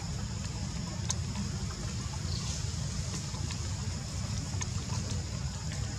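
Outdoor background noise: a steady low rumble with a faint, steady high hiss above it and a few soft clicks.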